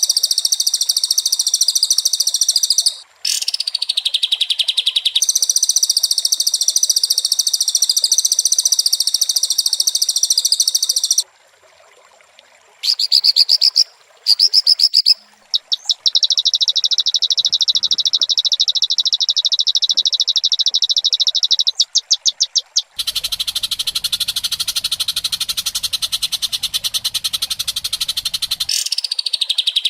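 Fast, buzzy trilling calls repeated in long unbroken runs, high-pitched and very even. They cut off and restart abruptly several times, with short gaps around 11 to 13 s and 14 to 16 s. In the later part a segment carries a low background rumble beneath the trill.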